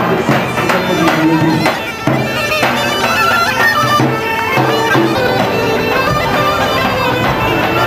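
Balkan folk band playing on the march: bagpipes over a steady drone, beaten out by a large double-headed bass drum, with accordion.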